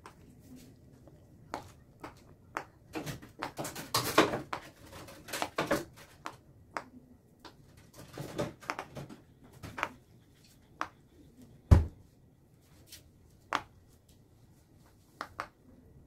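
Silicone Pop It fidget toy bubbles pressed one after another by a child's fingers: irregular soft pops and clicks, with a louder knock a little before twelve seconds in.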